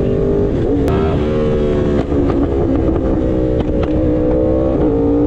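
2023 Yamaha R1's crossplane inline-four engine pulling steadily while riding at highway speed. Its pitch dips briefly about half a second in, then holds steady.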